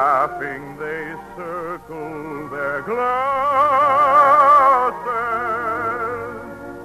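Operetta singing with orchestral accompaniment: a singer with a wide operatic vibrato, holding one long high note from about three to five seconds in.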